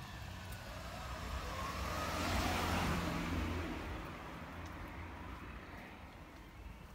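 A car drives past close by: its engine and tyre noise swell to a peak about two and a half seconds in, then fade away.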